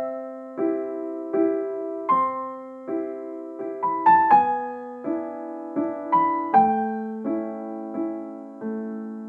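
Gentle piano music: slow chords struck about every three-quarters of a second, each ringing and fading.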